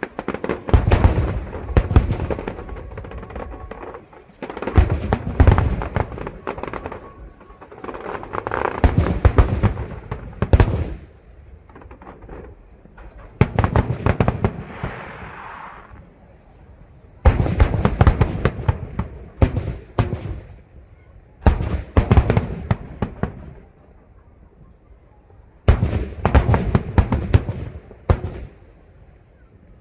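Fireworks display: aerial shells bursting in rapid volleys of booms and crackles, each volley lasting one to three seconds with short lulls between.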